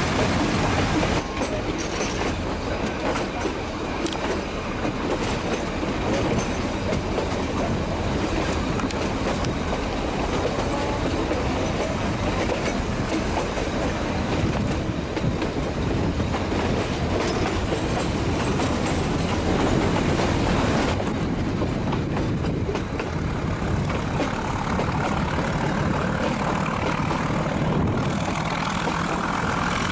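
Nilgiri Mountain Railway metre-gauge train running, with a steady rumble and the clack of wheels over the track.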